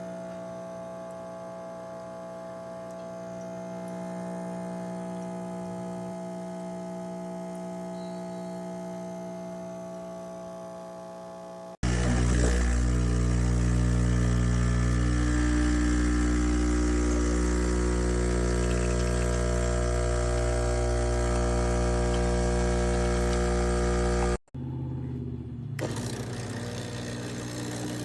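De'Longhi Stilosa espresso machine running in separate edited clips: a quieter steady hum, then about halfway a sudden cut to a much louder, steady buzz of its vibratory pump that lasts about twelve seconds and cuts off abruptly near the end, followed by a quieter, rougher running sound.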